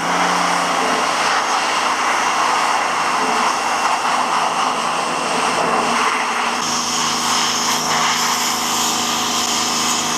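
High-pressure washer jet blasting water onto a greasy metal engine housing part: a loud, steady hiss with a constant hum underneath.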